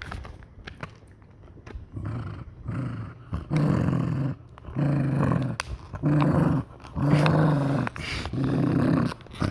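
Dog growling in a series of low growls, each about a second long with short breaks between them, guarding a bottle it is chewing. Scattered sharp clicks of the bottle are heard in the first two seconds, before the growling starts.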